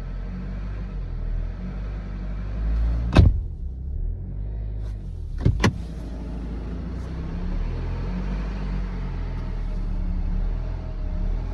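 BMW X3 G01 four-cylinder diesel engine running steadily on a cold start, with the knock it makes when cold. Two loud sharp knocks stand out, about three and five and a half seconds in.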